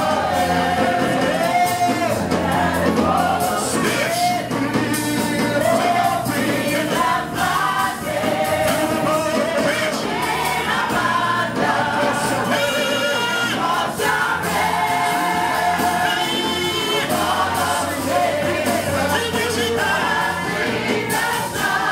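Live gospel worship music: voices singing over a band with a steady bass line underneath, continuing without a break.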